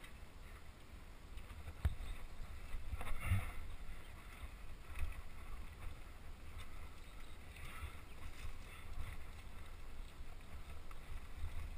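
Mountain bike rolling down rough dirt singletrack, heard as a steady low rumble on the GoPro's microphone, with a sharp knock about two seconds in and a few short rattling scrapes.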